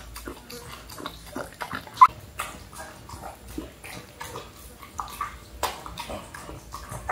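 Newborn puppies nursing: wet suckling and smacking sounds and small grunts, with one short, high squeak about two seconds in.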